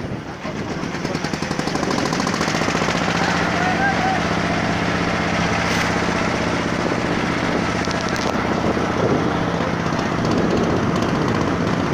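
Boat engine running with a rapid, jackhammer-like knocking beat. It builds over about the first two seconds, then runs steady and loud.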